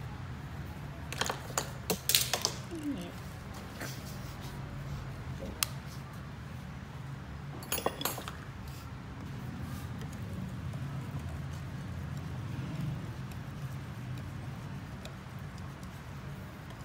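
Metal wire whisk clinking and tapping against a mixing bowl in a few short clusters, over a steady low hum.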